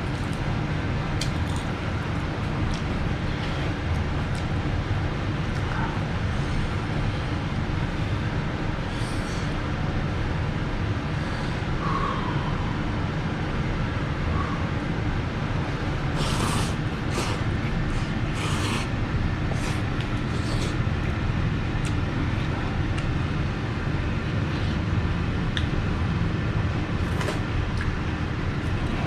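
Steady low background rumble with a few short, sharp eating sounds of slurping and clicking scattered through it, most bunched together a little past the middle.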